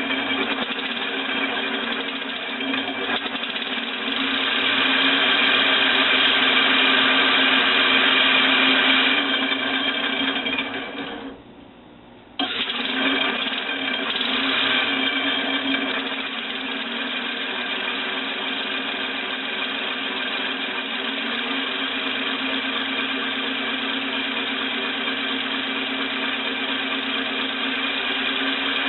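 Homemade compressed-air engine running on shop air at about 110 psi, a steady mechanical running sound. It gets louder for a few seconds, then winds down and stops about eleven seconds in, and starts again abruptly about a second later.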